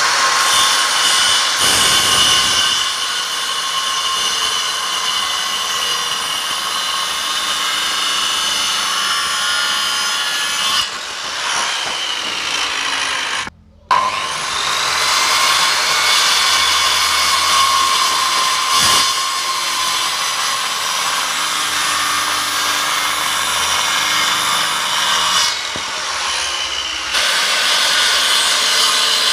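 Handheld electric circular saw running and cutting through wooden boards: a steady whine over the noise of the blade in the wood. The sound cuts out abruptly for a moment about halfway through, then resumes.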